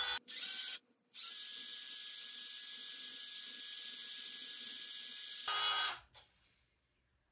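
Cordless drill driving a long bolt through a plastic hinge: a brief pulse, a short pause, then a steady run of several seconds that stops abruptly about a second and a half before the end.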